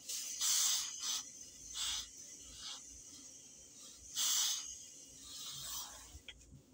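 Hose-fed steam iron hissing as it releases repeated bursts of steam onto the cloth: about five bursts, the loudest near the start and about four seconds in.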